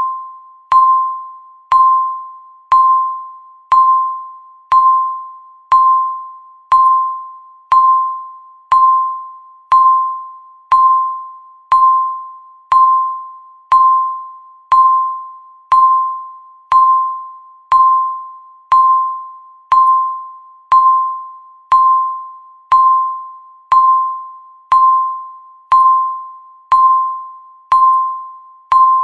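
Countdown timer's tick sound: a short, pitched electronic ding struck once every second, each one fading quickly, in a steady even rhythm.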